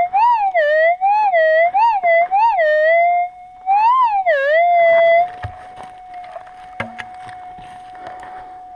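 Gold prospecting metal detector's target signal, a loud tone swooping up and down in pitch in repeated waves as the coil passes over a small gold nugget. About five seconds in it settles to a steady threshold tone, with scraping and a few sharp knocks.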